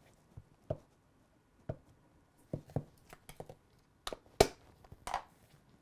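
Light plastic taps and clicks from inking a clear acrylic stamp block on an ink pad and handling the ink pad's plastic case, about a dozen scattered knocks with the sharpest a little over four seconds in.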